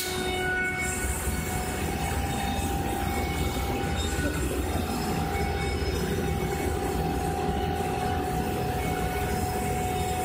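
CNC flatbed cutting table planing its own underlay board with a milling head: a steady mechanical hum with a low rumble and a couple of held tones.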